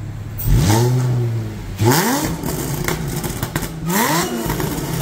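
Supercharged 3.0-litre V6 of a 2012 Audi S4 (B8) revved from idle three times in a rev test, each rev rising quickly and dropping back to idle. It runs through new ECS Tuning downpipes and mid section with the stock rear mufflers.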